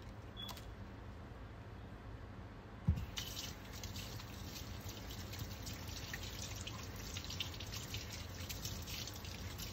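Quiet rubbing of soapy hands, then a knock about three seconds in, after which a kitchen faucet runs into a stainless steel sink, the stream splashing over hands as the soap is rinsed off.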